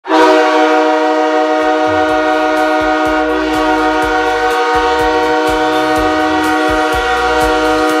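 Calgary Wranglers hockey goal horn blowing one loud, steady chord of several tones, held without a break. A goal song's bass and drum beat comes in underneath about a second and a half in.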